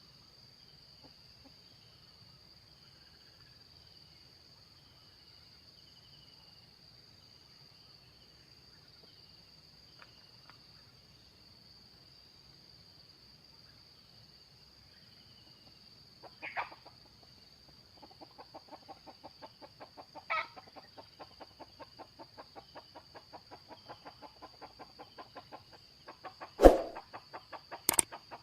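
Junglefowl calling, with two short calls and a quick run of clucks in the second half, over a steady high-pitched insect drone. A loud sudden thump comes near the end.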